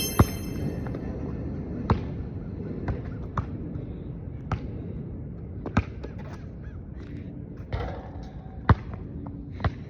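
A basketball bouncing: sharp single thumps at irregular intervals, roughly one a second.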